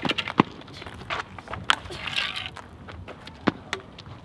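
Footsteps and scuffs on asphalt, with a few sharp, irregular knocks.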